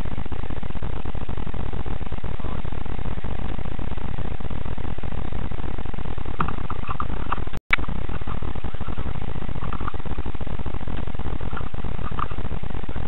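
Steady loud hiss and rumble from a cheap action camera's poor-quality microphone. It cuts out for an instant about halfway through, and a few faint short chirps sit over the noise near the middle and end.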